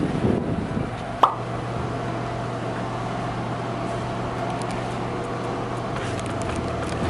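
Steady low mechanical hum with one sharp click about a second in.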